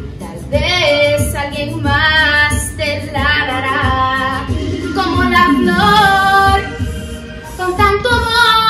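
A woman singing a song with a backing track that has a steady beat. Her held notes waver in pitch.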